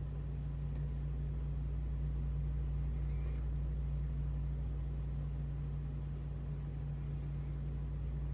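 A steady low hum runs throughout, with three faint ticks as a lock pick works the pin stack of a challenge lock.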